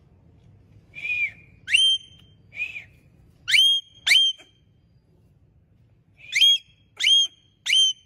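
Indian ringneck parakeet whistling: about eight short whistles, most of them sweeping sharply up in pitch. They come in two groups, five in the first few seconds and then three more after a pause of about two seconds.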